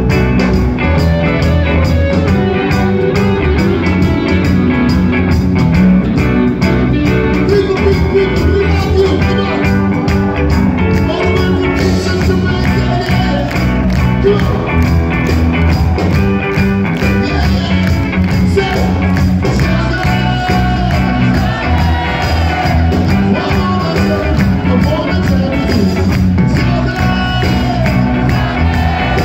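Live reggae band playing at full volume: heavy bass guitar and drum kit, electric guitar and keyboards, with a lead vocal.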